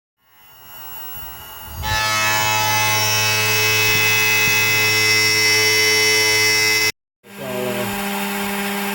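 Machine tool's motor starting up and then running steadily with a many-toned whine. It builds up over the first two seconds, drops out abruptly at about 7 s, and comes back as a lower steady hum.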